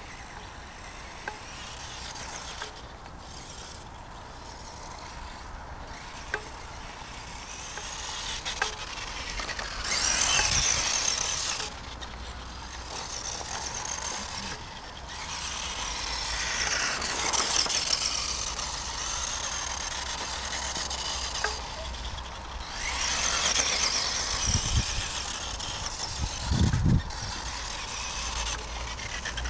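Tamiya Holiday Buggy radio-controlled car's electric motor and gears whining as it drives on hard snow. The whine rises and falls in pitch with the throttle and is loudest about ten seconds in and again later. Two low thumps come near the end.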